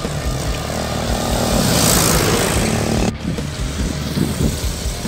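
A large truck passes close on the road. Its noise swells to a peak about two seconds in, then breaks off abruptly a second later.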